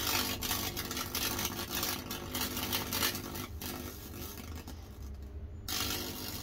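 Fractal (Lichtenberg) wood-burning rig arcing across a wet cedar board: a loud electrical buzz and crackling sizzle as the high-voltage current chars the wood. It breaks off briefly about three and a half seconds in and again around five and a half seconds.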